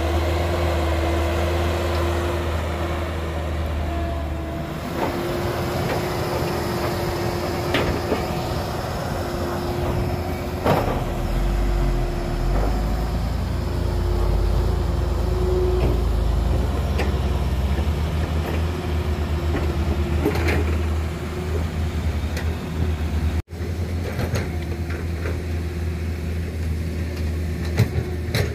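Diesel engines of a Cat 312B excavator and a loaded dump truck running, with a steady whine over the engine rumble and a few sharp knocks of the digging work. The low rumble swells about halfway through as the truck pulls away.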